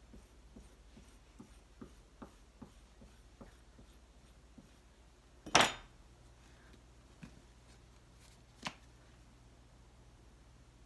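Scoring tool scratching the surface of a soft clay slab circle in short, light strokes, about two or three a second. About halfway there is a sharp knock, the loudest sound, as the tool is set down on the work table, and a second knock about three seconds later.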